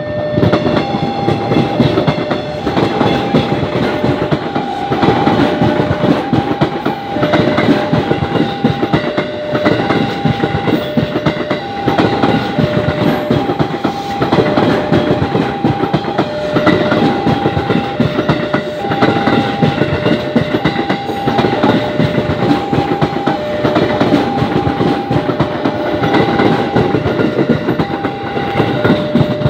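KRL Commuter Line electric train passing close by, its wheels clattering over the rail joints. Throughout, a level-crossing warning alarm rings in two tones, alternating high and low at an even pace, about one tone every two-thirds of a second.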